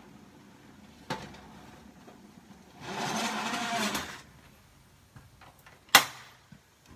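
Cookware being handled on an electric stovetop: a click about a second in, a rushing noise lasting about a second in the middle, and a loud metal clank of a pot or lid on the stove near the end, ringing briefly.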